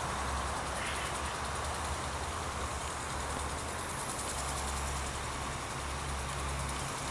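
Heavy equipment's diesel engine idling with a steady low hum.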